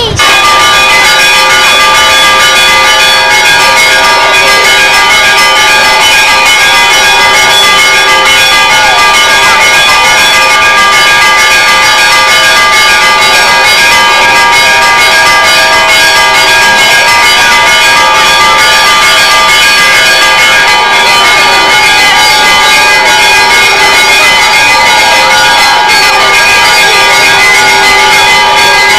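Church bells ringing loudly and without pause, many tones sounding together.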